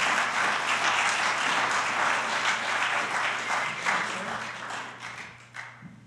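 Congregation applauding, a dense patter of many hands clapping that thins out and dies away near the end.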